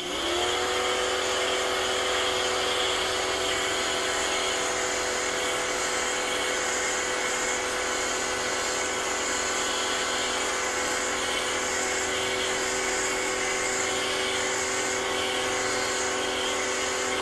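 Rock & Rocker 3000 PSI electric pressure washer's motor and pump spinning up as the wand trigger is pulled, then running at a steady pitched hum while the foam cannon sprays with a hiss.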